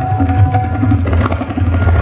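Tabla solo: fast, dense strokes on the tabla pair, with deep resonant bass strokes from the bayan, over a sarangi holding a sustained melodic line.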